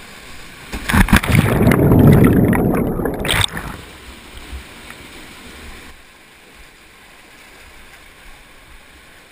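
Water rushing down a canyon waterfall chute. About a second in, loud splashing and churning water lasts a couple of seconds, the high end briefly muffled, as the canyoner slides down the chute into the pool. It then settles back to a steady, quieter rush of falling water.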